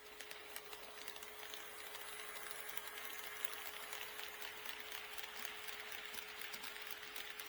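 HO-scale model train running past on the track: a small electric motor whirring, with scattered light clicks from the wheels on the rails. It grows louder about a second in and eases slightly near the end, over a steady faint hum.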